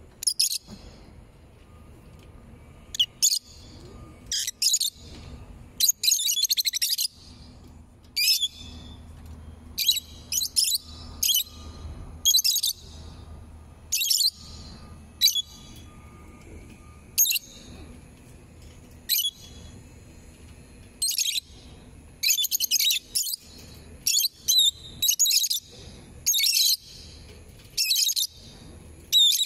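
Peach-faced lovebirds calling with shrill, high-pitched chirps in short bursts every second or two, some drawn out into about a second of rapid chatter, over a faint low background hum.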